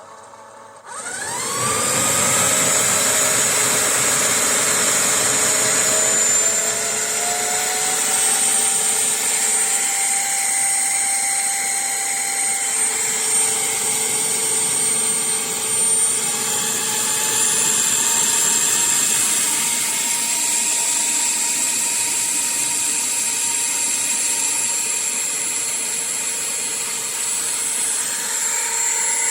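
Motor of a Bissell CrossWave OmniForce cordless wet-dry vacuum cleaner switching on about a second in, spinning up with a rising whine, then running steadily with a high whine.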